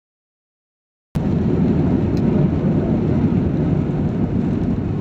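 About a second of dead silence, then a loud, steady rumble inside a jet airliner's cabin as it rolls down the runway after touchdown: the noise of the engines and the wheels on the tarmac.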